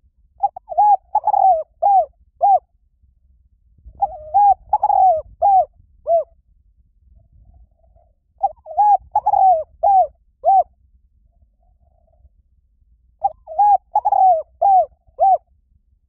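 Spotted dove cooing: four phrases, each a run of several short, arching coos, about four seconds apart.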